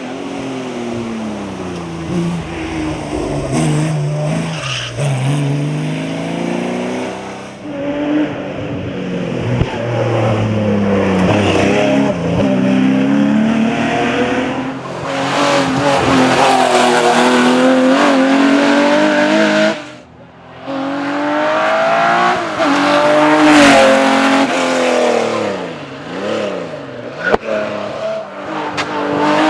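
Porsche 911 Carrera RSR's flat-six racing engine revving hard, its pitch climbing through each gear and dropping on the shifts and braking, over and over. About two-thirds through the sound briefly drops away, then the engine revs hard again.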